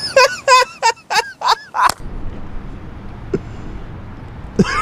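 High-pitched wheezing laughter in about six quick, loud bursts that cut off abruptly about two seconds in. Low background hiss follows, then another long, high-pitched laugh starts near the end.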